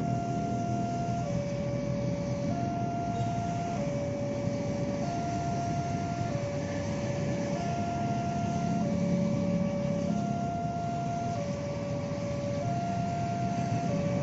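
Two-tone electronic warning alarm alternating between a higher and a lower note, each held about a second and a quarter, over a steady low rumble.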